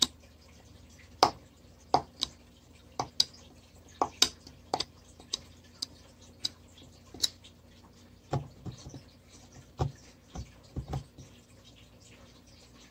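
Carving knife cutting into a wooden board by hand, a series of sharp, irregularly spaced snaps and clicks as the blade bites and chips split off. In the second half a few duller knocks.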